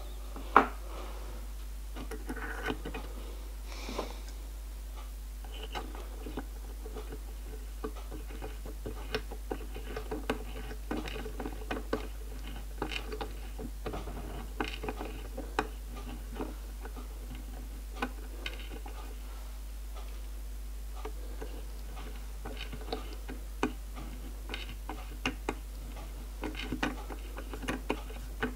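Hand-tapping a 9BA thread (about 1.7 mm) with a small tap turned through a drilled guide sleeve: irregular small metallic clicks and ticks as the tap holder is worked back and forth, with one sharper click about half a second in. A steady low hum runs underneath.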